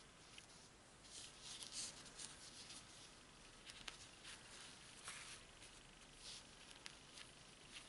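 Faint rustling and swishing of fabric scraps being handled and tacking thread being drawn through the cloth as loose hand stitches are sewn, with a couple of small clicks.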